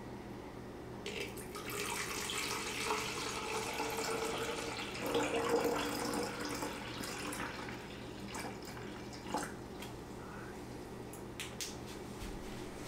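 Liquid photographic chemical poured from a plastic gallon jug into a plastic graduated mixing container: a splashing stream that starts about a second in, is strongest near the middle, then fades out. A few short clicks follow near the end.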